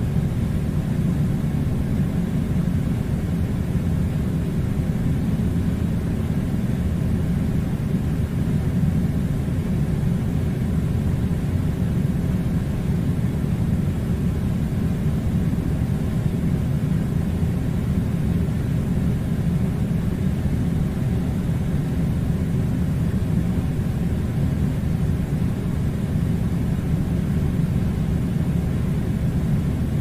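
Steady low rumbling noise, even and unchanging throughout, with no separate events in it.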